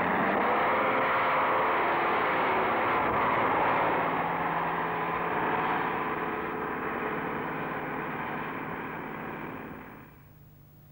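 Motor vehicle engine running steadily, fading gradually over several seconds and then dropping away sharply near the end.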